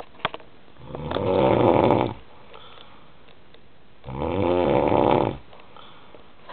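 A man snoring with two long rasping breaths, each about a second and a half, separated by quiet pauses; the snores are likened to Darth Vader's breathing.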